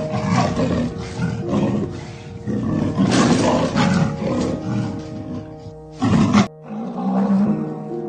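Big cat growling and roaring in a run of rough, drawn-out calls, with a short loud burst about six seconds in, over steady background music.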